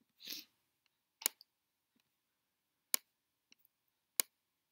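Computer mouse clicking: three sharp, isolated clicks roughly a second and a half apart, from the sliders of a graphic equalizer being dragged on screen. A short soft rush of noise comes just before them.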